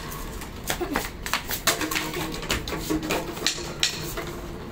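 Sticks batting an empty plastic bottle and knocking on a concrete floor: a string of sharp, irregular clicks and knocks.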